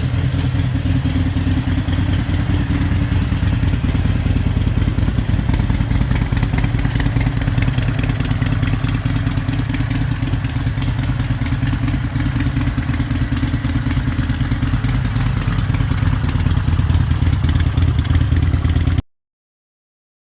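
Harley-Davidson Sportster Forty-Eight's air-cooled V-twin running steadily on its new stator, a dense low rumble that cuts off suddenly near the end.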